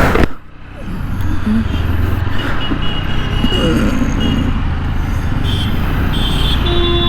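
TVS Apache 160 4V single-cylinder motorcycle engine running steadily on the move, with no tappet noise after a tappet adjustment. A few short high beeps sound over it around the middle and near the end.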